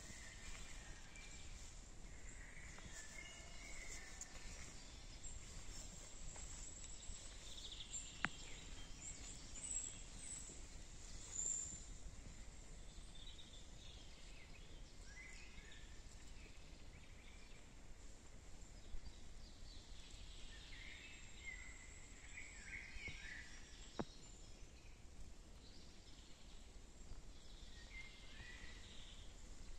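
Faint woodland ambience: scattered chirping bird calls come and go over a steady low background rumble, with two single sharp clicks, about a third of the way in and again near the end.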